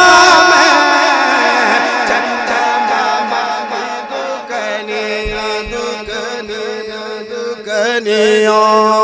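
A male voice sings a naat over a PA system in long, drawn-out melodic phrases above a steady low drone. The singing fades in the middle and swells again near the end, with a few low thumps about five seconds in.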